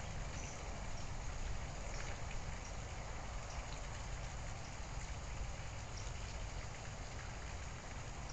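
Steady hiss over a low rumble, with faint scattered ticks.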